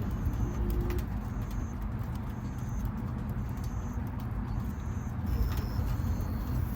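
Outdoor ambience: a steady low rumble with a few faint clicks, and a low cooing call in the first second, like a dove's.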